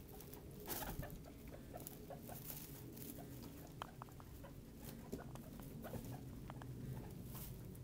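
Guinea pigs giving short, irregular squeaks and peeps, with rustling of hay. The rustling is loudest about a second in.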